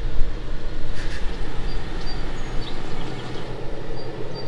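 Third-generation Toyota 4Runner's 5VZ-FE V6 running as the truck drives out of the garage and away, its low engine rumble fading as it goes. Birds chirp now and then.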